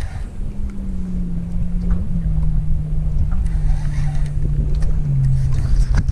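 Boat motor running at trolling speed, a steady hum that drops in pitch in a few steps, under a low rumble of wind on the microphone.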